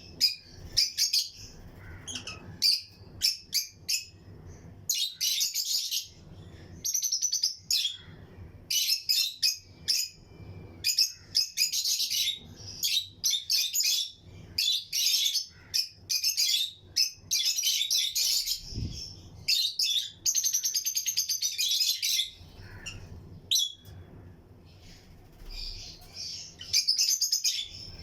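A flock of lovebirds in a colony cage chirping, with rapid overlapping bursts of high, squeaky chirps throughout.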